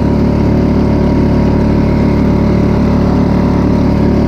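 Small outboard motor running steadily at higher throttle, with water churning and splashing over the kayak's stern: the motor's wake is washing into the boat.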